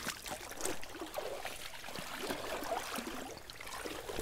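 Stream water babbling and trickling, a steady burbling with many small irregular splashes.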